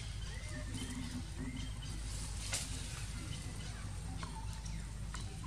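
Faint animal calls: short, high, gliding chirps scattered through a steady low outdoor rumble. A single sharp click comes about two and a half seconds in.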